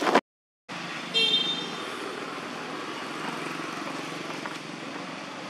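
Motor vehicle traffic running steadily, with one short vehicle horn toot about a second in. All sound drops out briefly just at the start.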